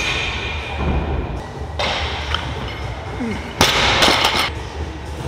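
A loaded Olympic barbell with bumper plates dropped from overhead after a snatch, landing on the lifting platform with a sudden thud and rattle about three and a half seconds in.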